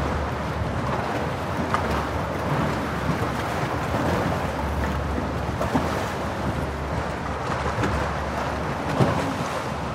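Inflatable boat under way, its motor running steadily, with water splashing against the hull and wind buffeting the microphone.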